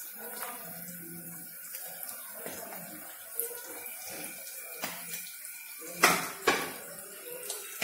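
Masala-coated bitter gourd pieces sizzling as they fry in hot oil in a kadai, a steady hiss, with two sharp knocks about six seconds in.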